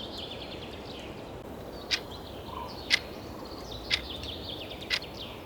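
Countdown clock ticking about once a second over recorded outdoor ambience with birds chirping.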